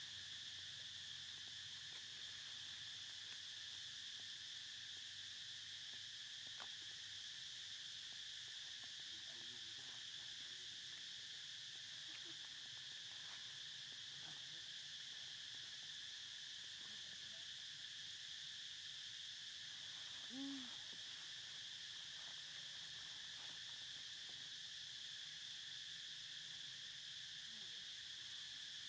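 Steady chorus of insects, a high even hum. One short low call is heard about two-thirds of the way in.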